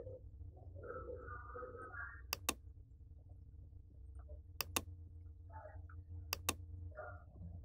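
Computer mouse clicking: three pairs of quick sharp clicks, about two seconds apart, over a low steady hum.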